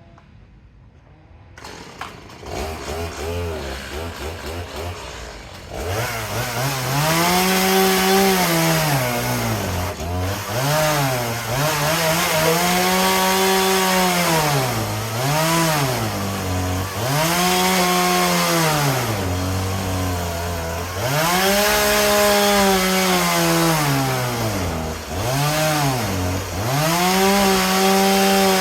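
Chainsaw engine idling low, then from about six seconds in revved up and held at high revs for a few seconds at a time, dropping back briefly between runs, as when cutting timber.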